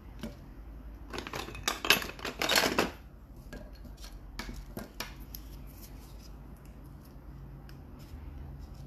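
Handling noise of small metal jewelry tools: a clatter of clicks and scrapes for about two seconds, then a few separate sharp clicks.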